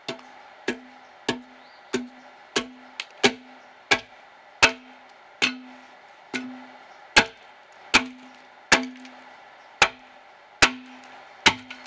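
Axe blows chopping into a dead ash log, a steady run of about seventeen strikes at roughly one every 0.7 seconds, each hit followed by a short low ring.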